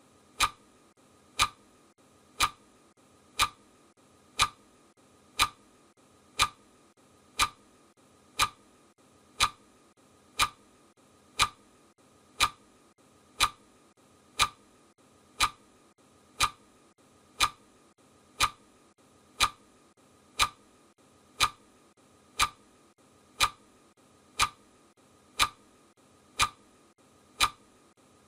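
Countdown timer's clock-tick sound effect: one short, sharp tick each second, steady and even.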